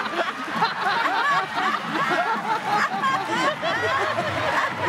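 Studio audience and guests laughing at a punchline, several people laughing and chattering over one another.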